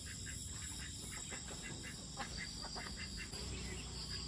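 Night insects, crickets among them, chirring steadily in a high, thin chorus, with faint scattered ticks beneath.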